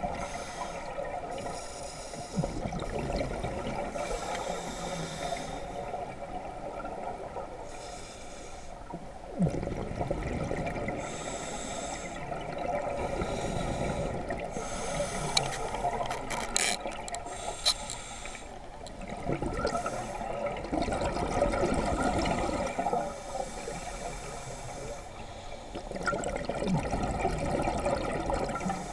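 Scuba diver breathing through a regulator underwater: hissing inhalations alternate with low gurgling rushes of exhaled bubbles, repeating every few seconds.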